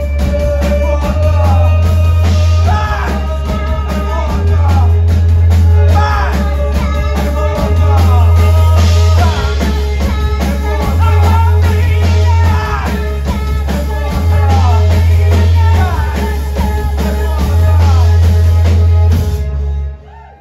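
Live post-punk trio of drums, bass guitar and violin playing loud and full, with a driving drum beat, a pulsing bass line and vocals. The song ends on a sharp stop about a second before the end.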